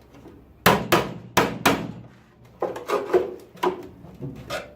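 Hammer blows on the steel of a car body shell, knocking off leftover floor metal: four sharp strikes in quick succession, then several more irregular blows.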